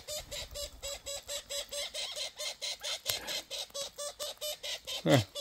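Australian king parrots: a young bird gives a rapid, even run of harsh begging calls, about six or seven a second, the call it makes to be fed by its parents. About five seconds in, a single louder call sweeps steeply down in pitch.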